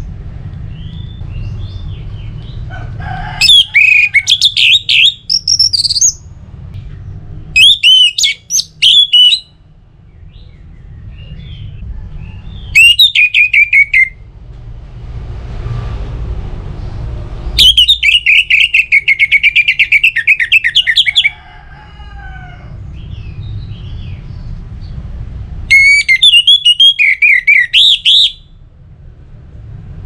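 Orange-headed thrush singing loud, full song: five bursts of rapid, varied warbling phrases, each one to four seconds long, with a steady low hum beneath.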